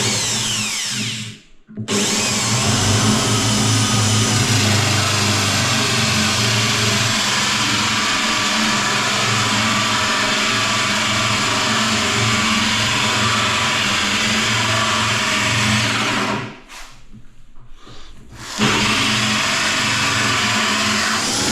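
Electric drill with a hole saw cutting a pipe hole through the timber back of a vanity cabinet, running steadily under load. It stops briefly just after it starts and pauses for about two seconds near the end before cutting on.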